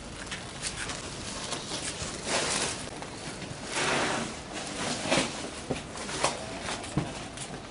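Plastic-wrapped voting-booth panels being carried and stacked by hand: the plastic sheeting rustles in two longer swishes a few seconds in, followed by several sharp knocks as panels are set down.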